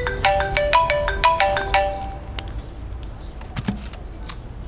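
Mobile phone ringtone: a quick melody of short bright notes for about two seconds. A couple of light knocks follow as the phone is handled.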